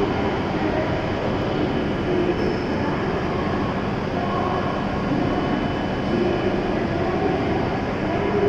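Steady rumble and hum of an enclosed shinkansen station platform, with a faint steady high whine over it; no train is passing and the level holds even throughout.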